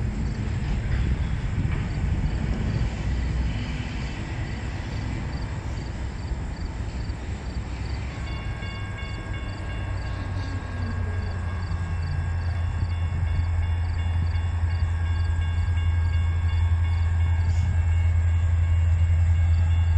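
Approaching CN freight train led by an EMD SD70M-2 diesel locomotive: a low engine rumble that grows steadily louder, with a steady high whine of several tones joining about eight seconds in.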